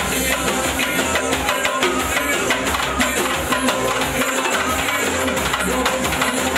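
Lively dance music with fast live hand drumming on a set of stand-mounted drums over a held melody.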